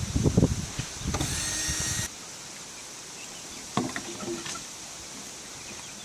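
Rumbling handling noise, then about a second of steady mechanical whirring or scraping that stops sharply, typical of a chicken coop door being opened. A few soft clucks from the hens follow.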